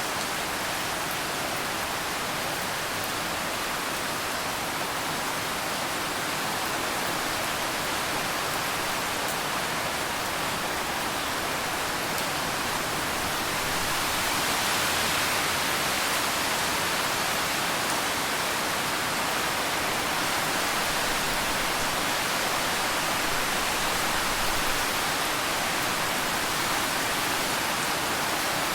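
Steady rain falling, a dense even hiss with no separate drops standing out, growing slightly heavier about halfway through.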